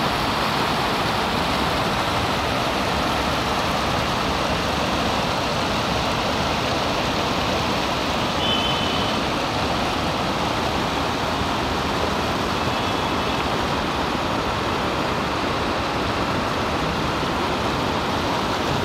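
Fast, shallow mountain river rushing over rocks: a loud, steady, even noise of moving water.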